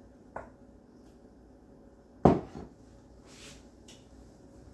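Kitchen handling sounds at the counter: a light click, then one sharp knock a little over two seconds in, the loudest sound, followed by a few soft clinks and a brief rustle.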